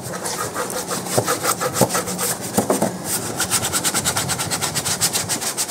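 Small detailing brush scrubbing wet plastic engine-bay trim with all-purpose cleaner, in rapid back-and-forth strokes.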